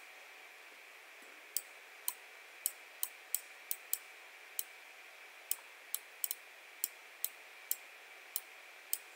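Computer mouse buttons clicking: short, sharp single clicks at an irregular pace of roughly two a second, with one quick double click, over a faint steady hiss.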